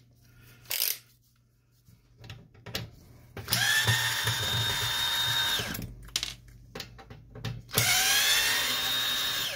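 Cordless drill-driver running twice, about two seconds each time, backing screws out of a laser printer's power supply board. Each run is a steady whine, with a few light handling clicks between the runs.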